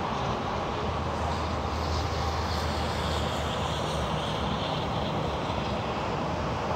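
Steady low rumble of vehicle engine and traffic noise as a semi tractor unit drives by, with a constant deep hum and no clear separate events.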